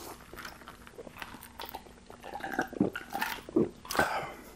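A person drinking from a bottle: gulps and swallows with wet mouth sounds, quiet at first and louder from about two and a half seconds in, ending with a sharp breath out about four seconds in.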